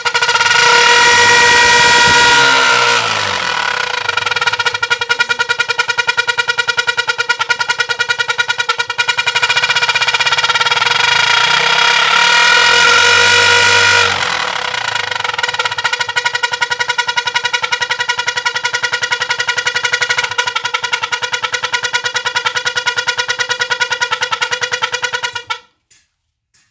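Hero motorcycle exhaust through a modified silencer, giving a steady horn-like, aircraft-style tone over rapid exhaust pulsing. It gets louder twice, near the start and again before the middle, then cuts off suddenly near the end.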